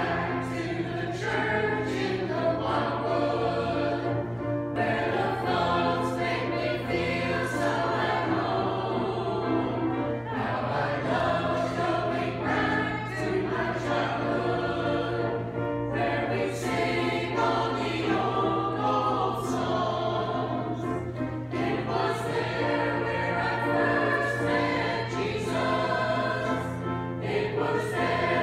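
Mixed church choir of men's and women's voices singing together in phrases, with a steady low hum beneath.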